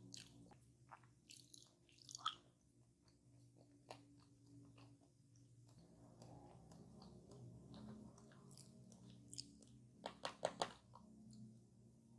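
Quiet close-miked chewing and crunching of a fried fast-food pie's crisp crust, with a quick run of sharp crunchy bites about ten seconds in, the loudest part.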